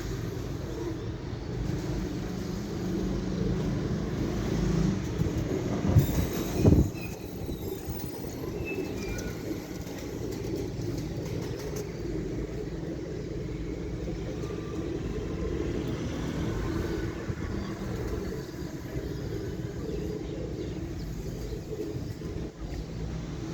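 Pigeons cooing over a steady low rumble, with a couple of loud thumps about six seconds in.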